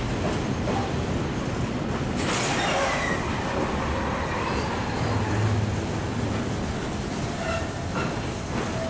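Container freight train rolling past close by: a steady rumble and clatter of wagon wheels on the rails, with brief squeals from the wheels a couple of times.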